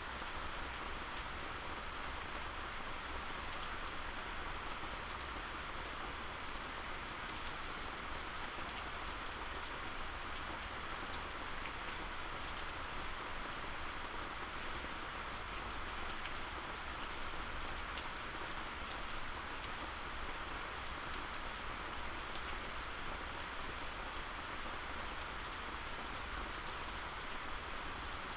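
Steady rainfall on a surface: a constant hiss of rain with many fine droplet ticks.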